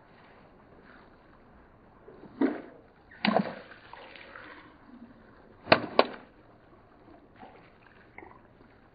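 Water-filled long balloons bursting under a slowly rolling car tyre: four sharp pops, the last two close together, with water spraying and splashing after the bursts.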